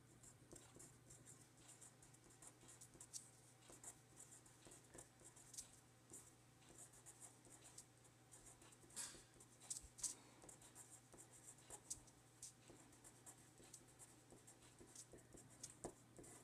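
Faint scratching of a felt-tip pen writing on paper in many short strokes, over a low steady hum.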